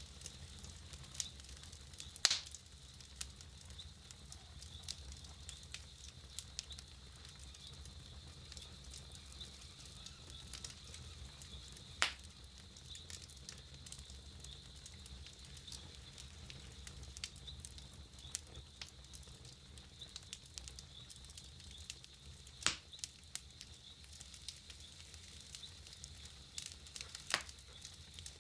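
Wood campfire crackling, with many small irregular snaps and four louder sharp pops spread through.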